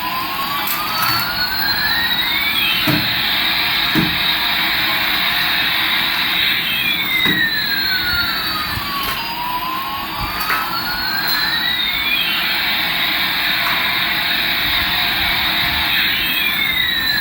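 Toy Airbus A380's electronic sound effect: a steady jet-engine hiss with two siren-like tones sweeping up and down against each other, repeating about every six seconds. A few clicks and knocks come through underneath.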